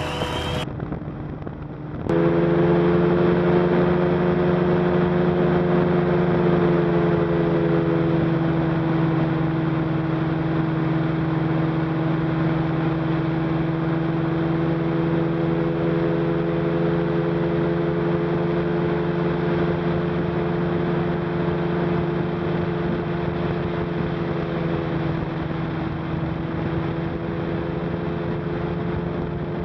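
Engine of an ultralight trike (motorised hang-glider) running at a steady cruise setting in flight, a constant droning hum with air rush. It cuts in loudly about two seconds in, after a short quieter stretch.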